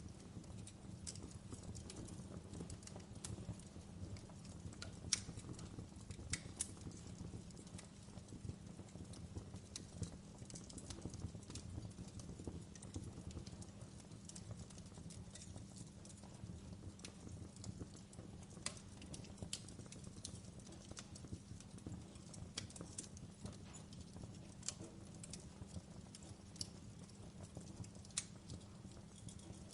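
Campfire crackling: a low steady rumble of burning wood with scattered sharp pops and snaps, a few louder ones now and then.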